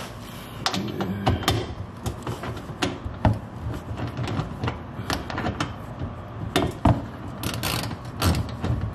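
Ratchet wrench with a 10 mm socket clicking in irregular runs as it backs out the screws holding a car's plastic underbody cover, with scattered knocks and a short scraping burst near the end.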